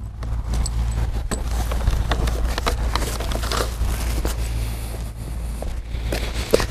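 Steady low rumble with scattered light clicks, scrapes and footsteps as a flow sensor and its cable are carried and handled.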